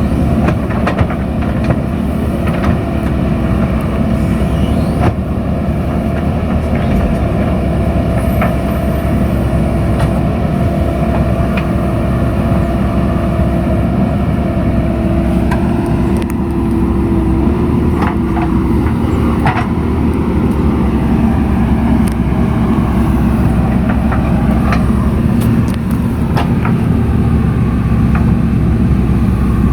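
JCB 3DX backhoe loader's diesel engine running steadily under working load, with scattered sharp clanks and knocks over it.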